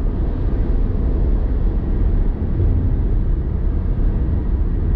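Car driving, heard from inside the cabin: steady engine and tyre noise, mostly a low rumble with no sudden events.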